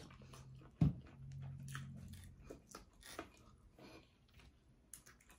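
Close-up wet chewing and lip-smacking of a chicken wing, with many small clicks throughout. A sharp knock about a second in is the loudest sound, and a short low hum follows it.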